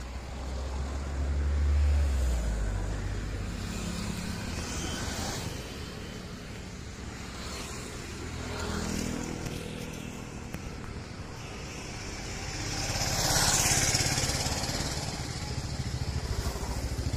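Road traffic of scooters, motorcycles and cars passing close by, their engines humming and swelling as each goes past. The loudest pass-by comes about thirteen seconds in.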